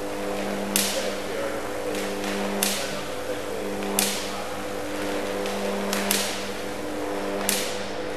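Jacob's ladder running at 30 kV: the electric arc buzzes steadily between the horn electrodes, with a sharp crack every one and a half to two seconds, five in all, as the arc breaks and strikes anew at the base.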